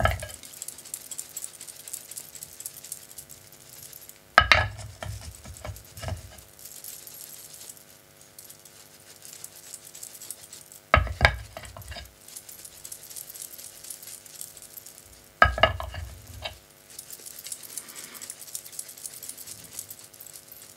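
Soft scratchy brushing of a paintbrush over a gilded glass bottle, sweeping off the excess gilding flakes. Three dull knocks stand out, about four, eleven and fifteen seconds in, over a steady faint hum.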